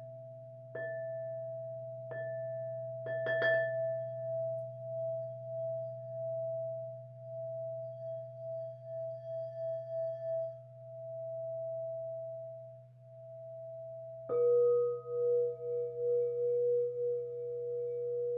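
Crystal singing bowls ringing: one bowl is struck a few times in the first four seconds and its steady tone sustains with a pulsing waver, then a lower-pitched bowl is struck about fourteen seconds in and rings on, over a steady low hum.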